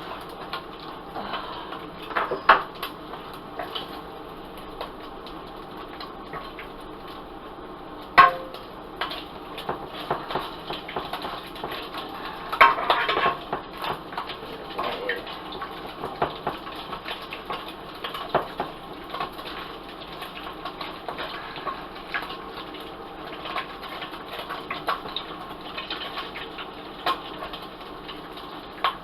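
A utensil clinking and scraping against a pot or pan while food is stirred, with a few sharper clanks about 2, 8 and 12 seconds in, over a steady low background hiss.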